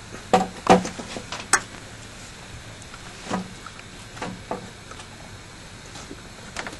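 Irregular metallic clinks and light knocks of tools and engine parts being handled while the upper intake manifold is taken off the engine: a quick cluster of sharp clinks in the first two seconds, then a few scattered ones.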